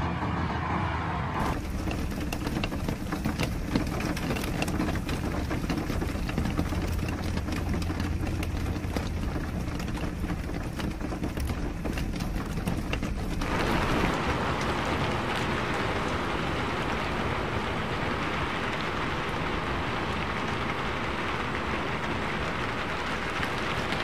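Rain falling, with many separate drops ticking and splashing on the ground close by. A little over halfway through, it changes to a steady, denser hiss of rain and tyres on a wet road.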